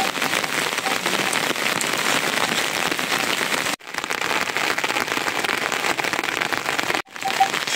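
Steady rain falling, an even hiss of drops, broken by two brief dropouts about halfway through and near the end.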